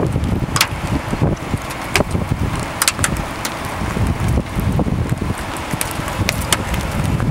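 Strong wind buffeting the microphone in low, gusting rumbles, with scattered sharp ticks throughout.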